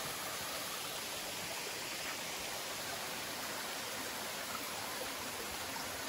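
Steady, even rush of water from a small waterfall spilling down a rock face into a rocky creek.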